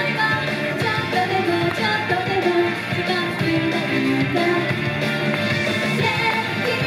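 Japanese idol pop song: an upbeat, rock-styled backing track with female voices singing the melody.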